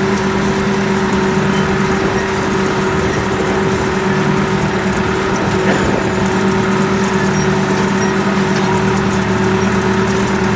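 Mahindra 4500 tractor's diesel engine running loud and steady, pulling a hay rake across the field.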